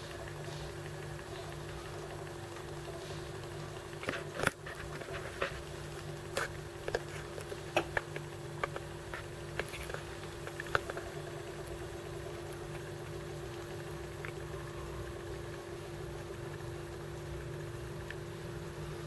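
Diaphragm booster pump of a Vertex Puratek Deluxe reverse-osmosis/DI water filter running with a steady hum. A scattering of sharp clicks and ticks comes between about four and eleven seconds in.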